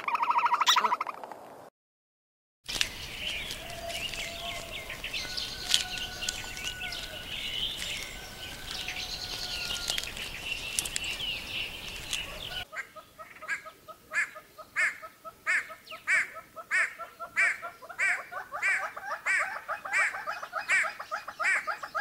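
A brief pitched call opens the clip and stops after about a second and a half. After a short silence, small birds chirp for about ten seconds. Then a great hornbill calls: a steady run of loud, falling calls at roughly one and a half a second.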